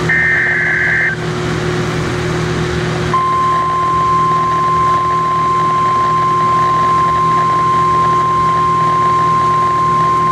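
NOAA Weather Radio emergency alert signal: a warbling two-tone SAME data burst for about a second, then about three seconds in the steady 1050 Hz weather radio alert tone starts and holds, over a constant radio hum. It announces the next National Weather Service warning.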